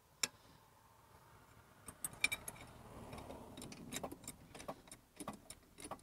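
Hydraulic floor jack worked by its handle: a sharp click about a quarter second in, then a run of metal clicks and clinks over a soft hiss in the middle seconds. The jack is not lifting, which the owner takes for a failed jack.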